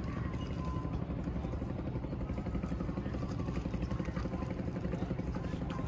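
Steady low rumble of a running engine, with a fast even pulsing.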